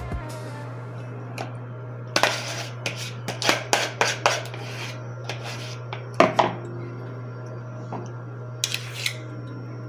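A metal utensil scraping and clicking against a cake pan while a soft topping is spread over the cake. The strokes come in irregular runs: a busy stretch around two to four seconds in, a few more after six seconds and again near nine seconds.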